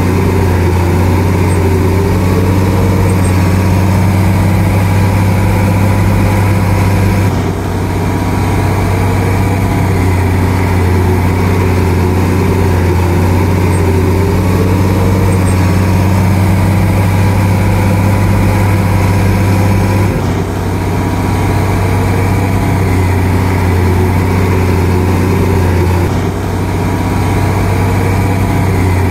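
Bulldozer's diesel engine running steadily while pushing soil, a deep drone with a wavering pitch above it. The sound dips briefly three times.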